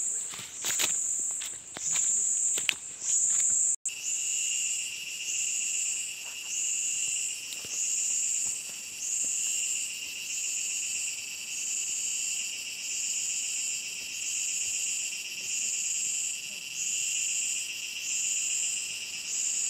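Forest insect chorus: a high buzzing that swells and fades in regular pulses a little slower than once a second, over a steadier, lower shrill trill. In the first few seconds a few knocks and rustles sound over it, then it cuts off for an instant.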